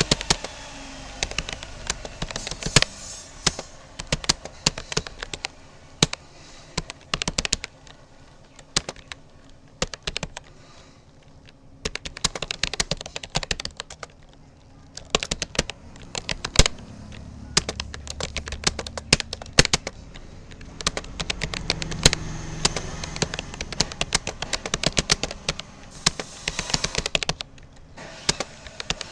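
Rapoo computer keyboard being typed on in rapid, uneven runs of key clicks, with brief pauses between runs.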